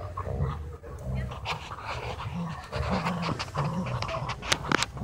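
An Alaskan malamute and a second dog panting and giving low play growls while tugging a leash between them, with a few sharp clicks near the end.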